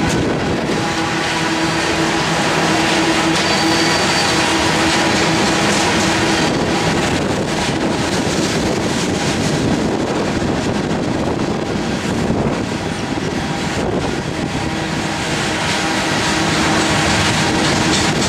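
Union Pacific loaded coal train rolling past: a steady rumble of steel wheels on rail from the passing coal cars. A steady whine sits over the rumble for the first few seconds and comes back near the end.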